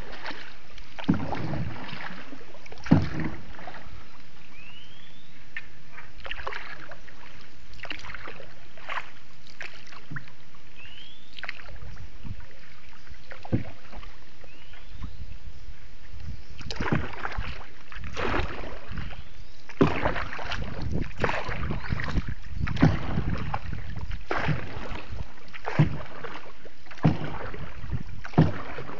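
Paddles dipping and splashing in floodwater as a small boat is paddled along, the strokes irregular at first and coming about once a second in the second half.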